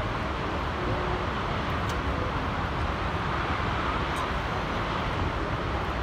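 Snoqualmie Falls, a tall waterfall plunging into its pool, making a steady rushing noise of falling water.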